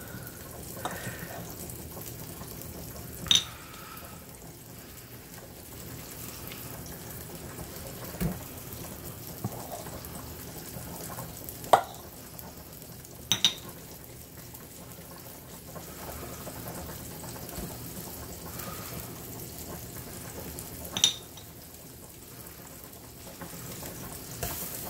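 Metal ice cream scoop clinking sharply against a stainless steel mixing bowl about five times while ground meat is scooped and shaped into meatballs, over a steady low hiss.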